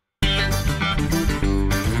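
Background guitar music that cuts in abruptly about a quarter second in, after a brief gap of silence.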